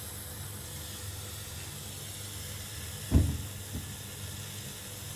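Gas stove burner hissing steadily on low flame, with a low hum underneath. A single thump about three seconds in, then a lighter knock.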